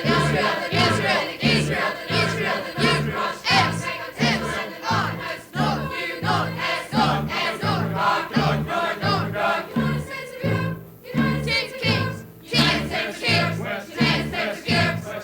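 A choir singing with a band, over a steady pulsing bass beat of a little under two beats a second; the music briefly thins out twice near the end.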